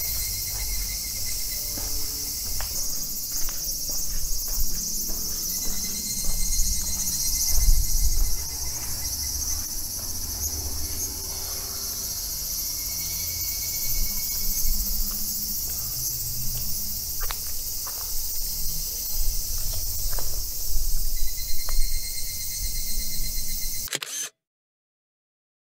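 A steady, high-pitched chorus of insects shrilling, over low rumble and scattered ticks from a handheld camera on the move. The sound cuts off suddenly near the end.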